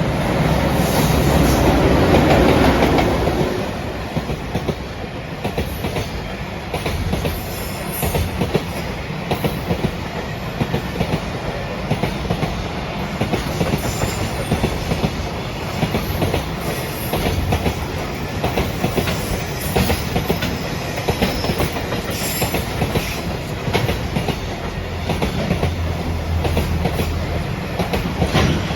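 A JR Freight EF210-100 series electric locomotive passing at speed, loudest in the first few seconds, then a long train of Koki container wagons rolling by with a steady clickety-clack of wheels over the rail joints.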